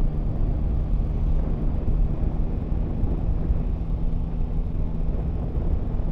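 Yamaha Tracer 9 GT's three-cylinder engine running at a steady cruise, its note holding nearly level under a low rumble of riding noise.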